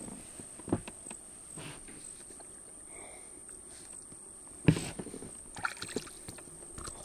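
A few knocks and bumps in a boat while a freshly caught pike is handled, the loudest about two-thirds of the way in, with light clicks after it. A steady high cricket trill runs underneath.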